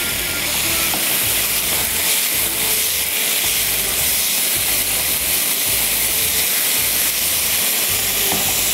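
Thin strips of undercut meat sizzling steadily in hot oil as they are stir-fried in a nonstick wok.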